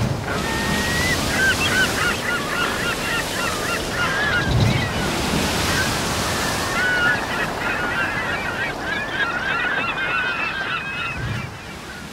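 Many gulls calling over the steady wash of sea surf, with a few low wave thuds, fading out near the end.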